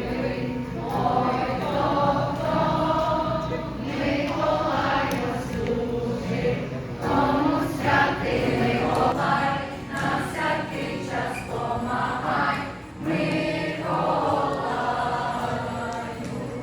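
A group of voices singing together in chorus, a song carried on steadily for the whole stretch.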